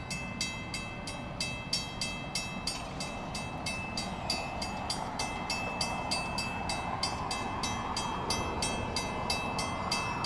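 Railroad grade-crossing bell ringing steadily, about three strikes a second. Under it, the rumble of an approaching NJ Transit train grows louder toward the end.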